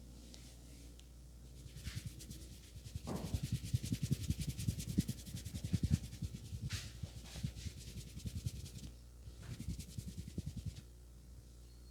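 Hands rubbing vigorously in a head massage: rapid friction strokes, several a second, starting about three seconds in and stopping near the end, with a few brief swishes of skin or hair.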